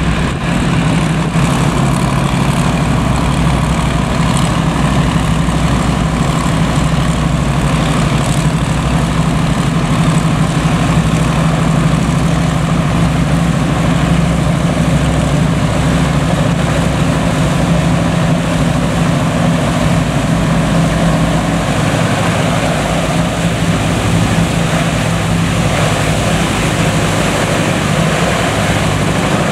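Passenger hovercraft's engines and twin ducted propellers running under power with a loud, steady drone over the hiss of its air cushion and spray as it comes in over the water. The low drone eases slightly a little over two-thirds of the way through.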